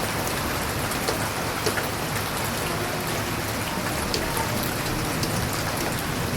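Rain pouring down steadily, with scattered sharp ticks of drops striking a nearby surface.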